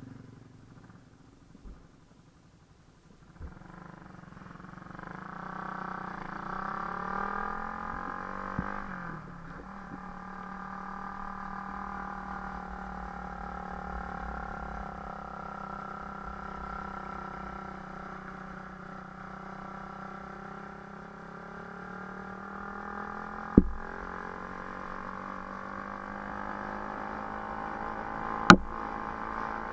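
A vehicle engine running steadily, its pitch shifting slowly up and down. It starts about three and a half seconds in, and two sharp knocks come near the end.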